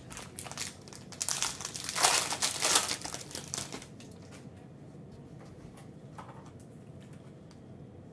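Foil wrapper of a Panini Prizm basketball card pack crinkling as it is torn open by hand. The crinkling is loudest about two to three seconds in and stops about halfway through.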